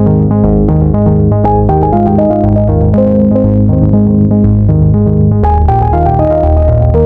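Background music: electronic synthesizer and keyboard track with a steady pulsing bass and a repeating melody.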